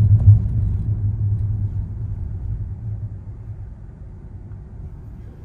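Cabin road noise inside a moving Honda Step WGN Spada e:HEV minivan, heard from the rear seats: a low rumble with one brief louder thud just after the start, then gradually fading over the following seconds.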